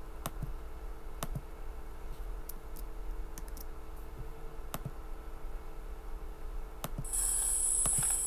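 Scattered sharp clicks at a computer, about ten of them, over a steady low electrical hum; about seven seconds in, a steady hiss with a high whine comes in.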